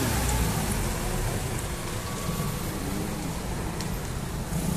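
Steady street background noise: road traffic with a constant hiss, and no single sound standing out.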